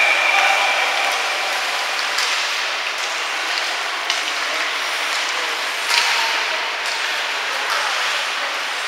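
Ice hockey rink ambience: a steady hiss of play and hall noise, broken by a few sharp knocks, the loudest about six seconds in.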